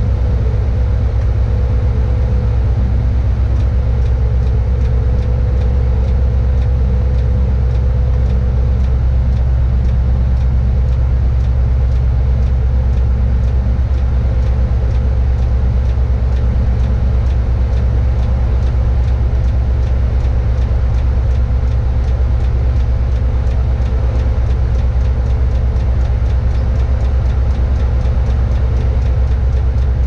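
Mobile crane's diesel engine running steadily under load during a lift, with a faint, regular ticking over the drone.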